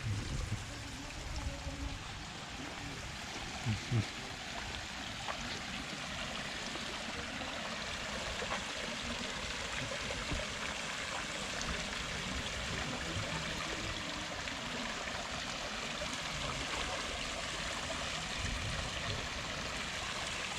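Steady rush of running water, like a stream or small waterfall, with two brief low bumps about four seconds in.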